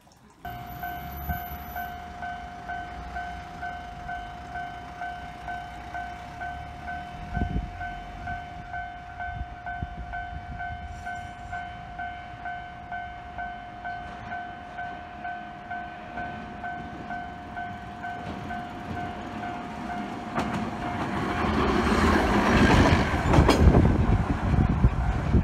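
Level-crossing warning bell ringing steadily at about two dings a second, then stopping. A 1928-built Hankai Tramway Mo 162 tram car then rolls up to the crossing, its wheels rumbling on the rails louder and louder near the end.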